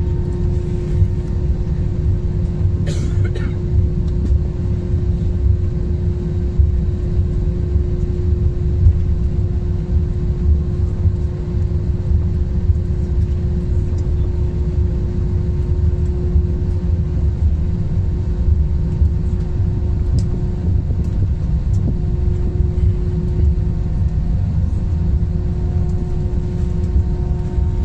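Airliner cabin noise while taxiing after landing: a steady low rumble with a constant hum, and a brief noise about three seconds in.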